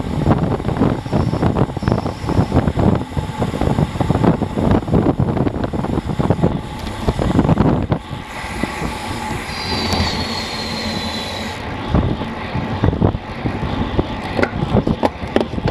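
Wind rushing and buffeting over a bike-mounted action camera's microphone on a fast road-bike descent at 30 to 40 mph. Past the middle, a short high squeal that falls slightly in pitch as the bike brakes hard from 40 mph for a bend.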